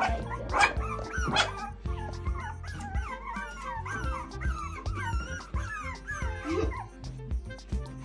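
A litter of puppies yipping and whining, many short high cries overlapping, with two sharper yelps in the first second and a half; they are eager to be fed. Background music plays underneath.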